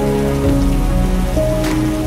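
Heavy rain falling steadily, a dense even hiss, under slow background music of long held notes that change every second or so.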